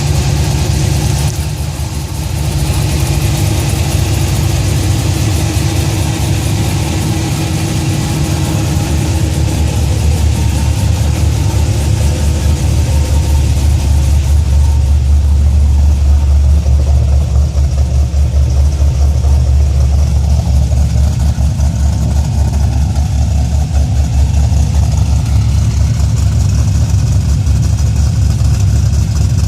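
A 2004 Cadillac CTS-V's 5.7-litre LS6 V8 idling steadily with a deep rumble. About halfway through it gets a little louder and duller.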